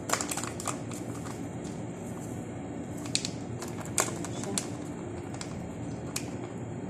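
Irregular crinkles and sharp clicks of a plastic packet of breading mix being handled and shaken, powder pouring onto a plate, over a steady low background noise.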